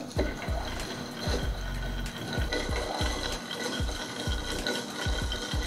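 Wooden swizzle stick spun between the palms in a glass of crushed ice and cocktail, churning the ice: a steady rattling clatter of ice against the glass, with irregular low knocks about three times a second.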